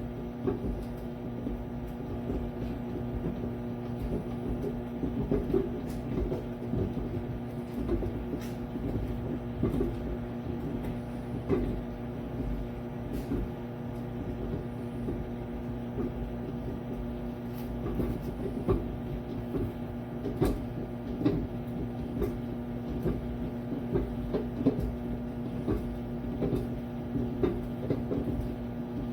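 Toshiba microwave air fryer combo oven running: a steady electrical hum with irregular light clicks and rattles.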